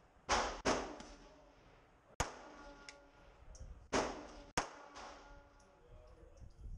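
.380 ACP pistol shots, fired one at a time: five sharp reports at uneven gaps, three of them in the first second and the rest about two seconds apart. Each report rings on briefly afterwards.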